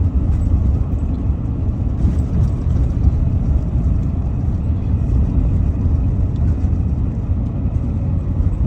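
Steady low rumble of a Chevrolet driving on a snowy road, heard from inside the cab: engine and tyre noise.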